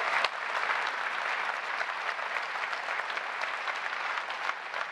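Audience applauding: dense, many-handed clapping that eases off slightly toward the end.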